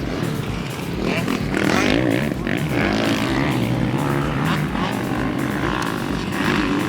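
Dirt bike engines running, their pitch rising and falling as the throttle is worked.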